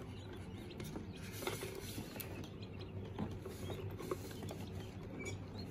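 Faint scattered scratching and small clicks of a hand rummaging in an incubator tray to pick up a newly hatched quail chick, over a low steady hum.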